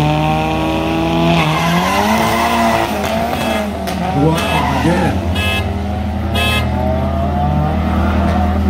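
Drag cars launching hard from the start line and accelerating away, engines revving up in pitch with drops at the gear shifts about one and a half and three seconds in, then fading as they run down the strip. A few short shrill sounds come through around the middle.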